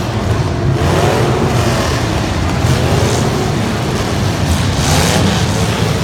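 Truck engines running loud and revving, with several rising surges in pitch over a steady low rumble.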